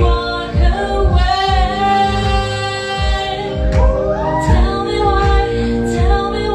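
Live pop music: a woman singing over sustained chords and a steady kick-drum beat.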